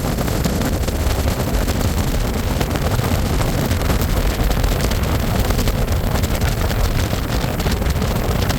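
Motorboat running across the water, a steady loud rush of engine and water noise with wind buffeting the microphone.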